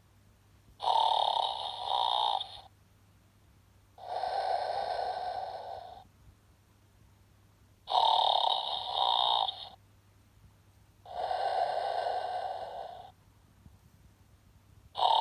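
Snoring sheep soft toy playing its snore: a louder, snorting in-breath alternating with a softer, smoother out-breath, each about two seconds long, repeating evenly every three to four seconds.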